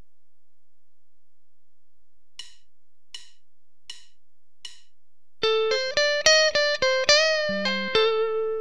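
Four evenly spaced clicks count in, then a guitar plays a quick single-note lead lick with string bends, ending on a held, vibrato-shaken note.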